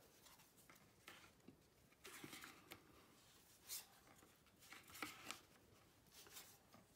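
Faint, scattered taps and rustles of thin game tiles being laid down and slid into place on a game board, with the stack in the hand rubbing together.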